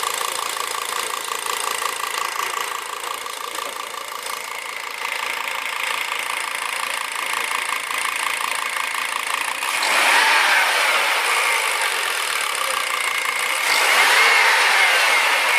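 1999 Volvo S80 T5 five-cylinder turbo engine (B5234T3) running with a fast, even knocking tick, the knock that the video is about. About ten and again about fourteen seconds in, the engine is briefly revved and grows louder.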